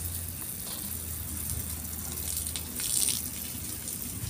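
Water spraying from a garden hose onto soil and plants, a steady hiss that swells a little about three seconds in.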